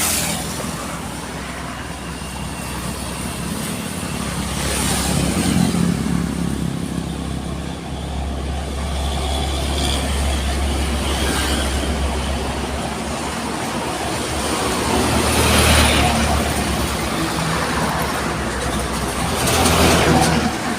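Road traffic passing close by: trucks and other vehicles with a steady low engine rumble. Three louder pass-bys swell up and fade away.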